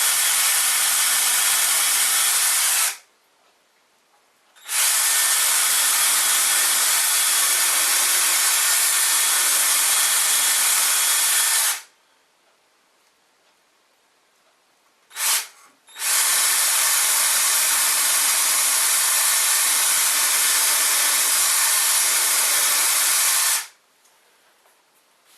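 Cordless power drill running in three long spells of several seconds each, starting and stopping abruptly, with one short burst between the second and third.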